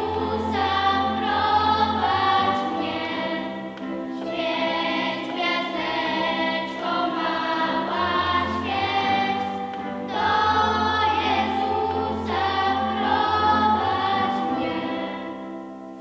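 Children's choir of girls singing a Christmas carol in unison, accompanied by an electronic keyboard with held bass notes. The final chord dies away near the end.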